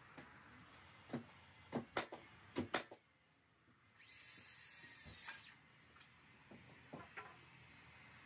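Light knocks and clicks from working on a timber floor frame, about six in the first three seconds, then a brief rustling hiss and a few faint clicks.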